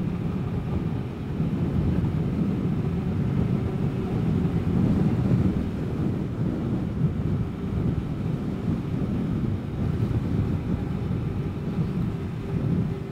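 Vespa GTS 300 Super Sport scooter's single-cylinder four-stroke engine running steadily at cruising speed, mixed with wind rumbling on the microphone.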